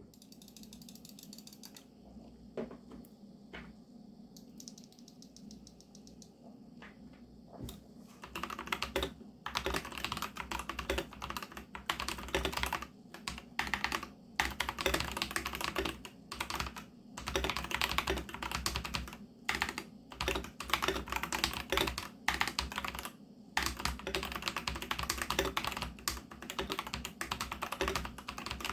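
Typing on an mStone Groove T mechanical keyboard with fully lubricated MMD switches and silicone sound-dampening foam: a few scattered keystrokes at first, then fast continuous typing from about eight seconds in, broken by short pauses.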